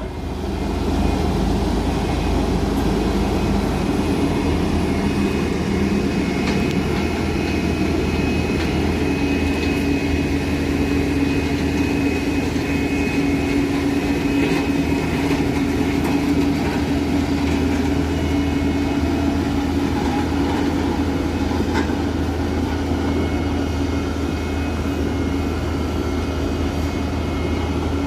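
Heavy truck engine working hard under load on a steep climb, a loud steady drone with a steady whine that comes in about a third of the way through.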